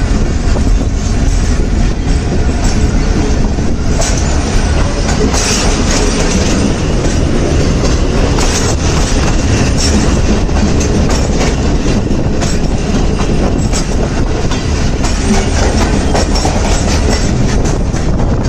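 Jaffar Express passenger train running along the track: a loud, steady rumble of the wagons, with wheels clicking over the rail joints.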